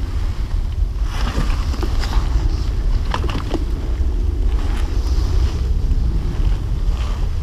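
Wind buffeting the microphone: a steady low rumble, with scattered short rustles and light taps over it.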